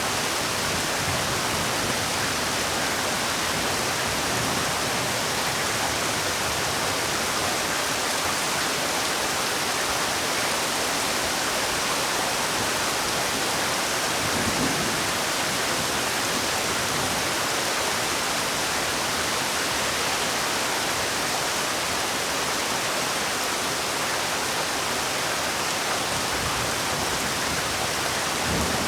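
Heavy rain falling steadily, an even hiss spread across the whole range without a break, with a brief low rumble about halfway through.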